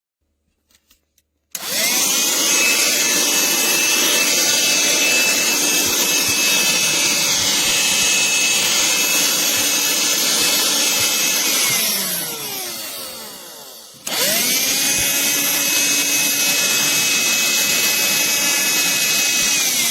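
Black+Decker Dustbuster cordless handheld vacuum switched on: its motor spins up with a rising whine and runs at a steady high pitch, then winds down with a falling whine after about ten seconds. It is switched on again at once, runs steadily, and winds down again near the end.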